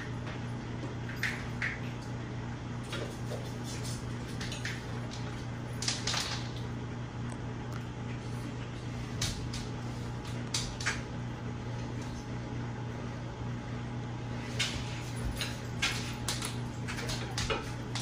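Casablanca Lady Delta ceiling fan running, with a steady low motor hum and scattered sharp clicks at irregular moments.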